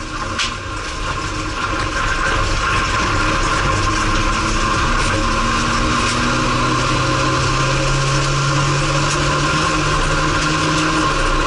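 Race car engine heard from inside the cockpit, picking up again after a brief lift and then pulling hard, its pitch climbing slowly and dropping near the end, over loud tyre, gravel and wind noise.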